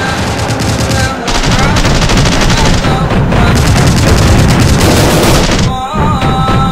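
War-film soundtrack of rapid automatic gunfire mixed over a music score, growing heavier about a second in. Near the end the firing breaks off and a wavering held note of the score comes through.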